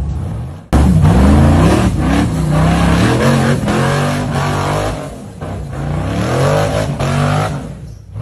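Tube-frame rock buggy's engine revving hard as it climbs wet rock ledges, the pitch rising and falling again and again, with the tyres spinning and throwing water. It comes in loudly just under a second in and eases off near the end.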